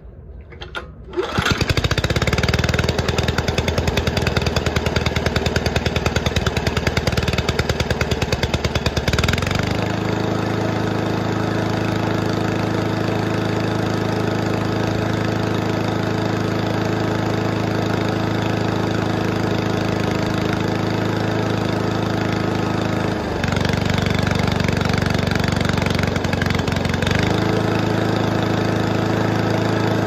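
Honda commercial engine on a Toro 22295 walk-behind mower pull-started on choke, catching about a second in and running unevenly, then settling into a steady run about nine seconds in. It starts now that the stale gas that would not burn has been drained from the carburetor and replaced with fresh fuel.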